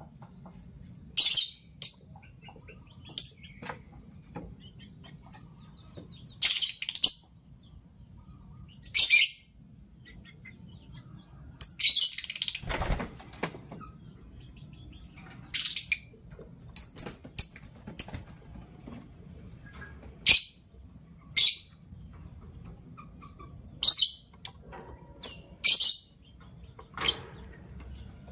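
Lovebirds chirping: short, shrill, high-pitched calls in ones and twos every second or two, with a brief rustling burst about halfway through.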